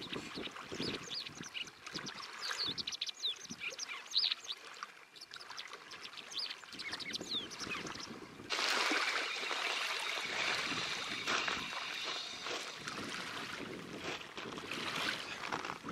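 Small waves lapping at a sandy shore, with many short, high bird chirps in quick succession over them. About halfway through this gives way abruptly to a steady rushing noise of wind and water.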